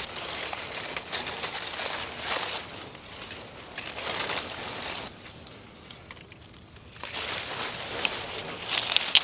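Guava tree leaves and branches rustling and crackling in irregular bursts as ripe guavas are picked by hand. There are a few sharp snaps and a quieter pause about two-thirds of the way through.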